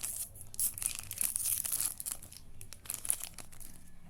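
A Magic: the Gathering Zendikar Rising booster pack's foil wrapper being torn open and handled, a rapid run of sharp crackles that thins out near the end.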